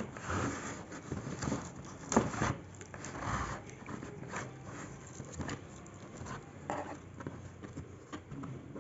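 Laptop packaging being opened and handled by hand: scraping and rustling with scattered clicks, and one sharp snap about two seconds in.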